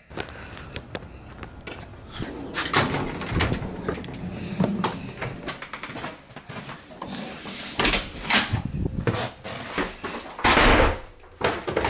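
An interior door opening, with footsteps on a wood floor and the knocks and rustles of a camera carried by hand.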